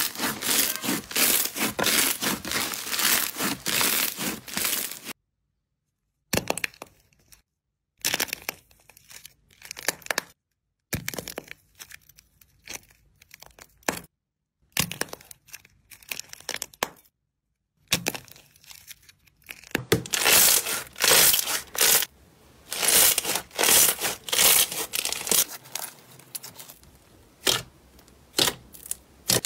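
Hands kneading and pressing slime, with dense crackling and crinkling at first. After several short silent breaks there is quieter squishing, then a run of sharp clicking pops near the end as a glossy clear slime is pressed.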